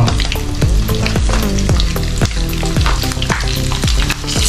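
Tuyo, small salted dried fish, frying in hot oil in a nonstick pan: a continuous sizzle with frequent sharp pops and clicks as metal tongs turn the fish against the pan.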